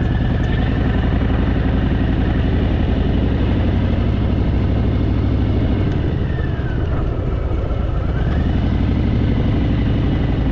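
Harley-Davidson Fat Boy's V-twin engine running on the move. The engine note dips about six seconds in and picks up again a couple of seconds later.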